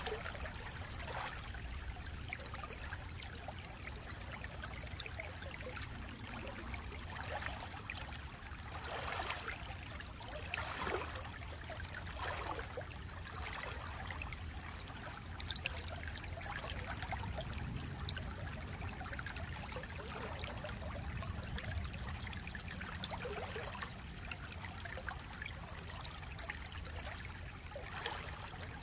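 Shallow stream flowing and babbling over stones, heard through a Samsung Galaxy Note 20 Ultra phone's built-in microphone, with frequent small splashes and a steady low rumble underneath.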